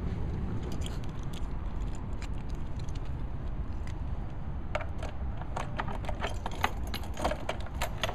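A steady low rumble, with a quick, irregular run of metallic jingling clicks in the second half, like keys jangling.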